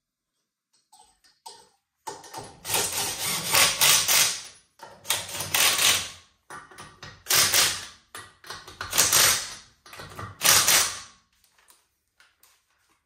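Impact wrench hammering through a 3/8-inch impact socket in about five bursts of one to two seconds each, with short gaps between trigger pulls.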